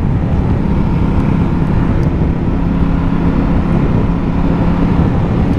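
Ducati motorcycle riding at a steady speed: an even engine drone under loud wind and road noise.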